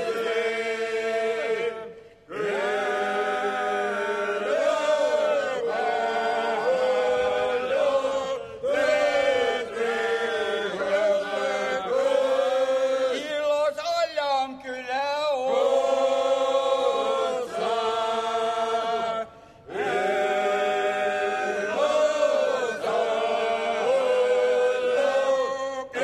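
Seto leelo: a male choir singing unaccompanied, several voices in close polyphony on long, drawn-out lines. The singing breaks off briefly twice, about two seconds in and again past the middle.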